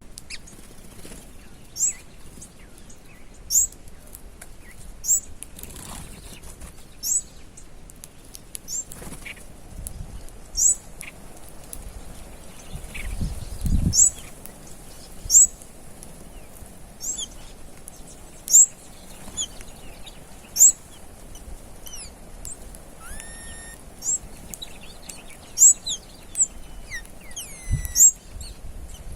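A bird repeating a short, sharp, high chirp about every one and a half to two seconds, with other birds whistling and calling near the end. A dull low thump comes about halfway through.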